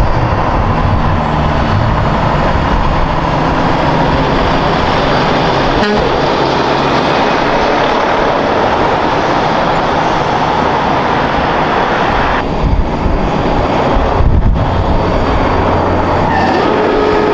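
Heavy diesel trucks with trailers driving along a winding road, engines running steadily with tyre noise. The sound changes abruptly about twelve seconds in, as a second truck takes over.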